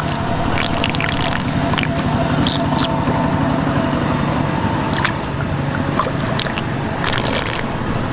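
Water swirling and splashing at the underwater mouth of a blue PVC siphon pipe as it sucks river water in, with hands splashing at the intake. A steady low hum runs underneath.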